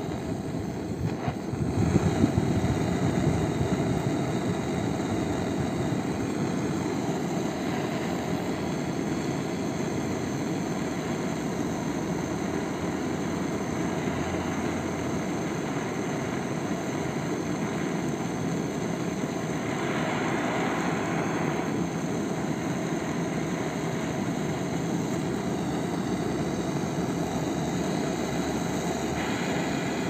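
Butane gas torch flame blowing with a steady roar, getting louder about two seconds in.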